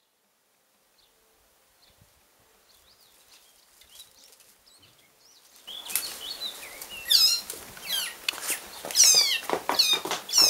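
Common frog screaming in distress in a cat's claws: from about six seconds in, a run of loud, wailing cries, one after another, each sliding in pitch.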